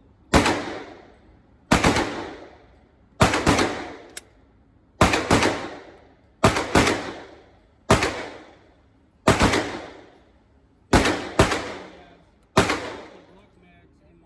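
Firearm fired in slow single shots, about ten in all, roughly one every second and a half, with two close together near the end. Each shot cracks sharply and then rings out in a long echo.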